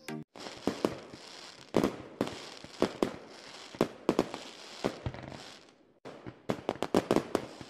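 Fireworks going off: sharp bangs every half second or so over a steady crackling hiss. It fades away just before six seconds in, then comes back with a quicker run of bangs.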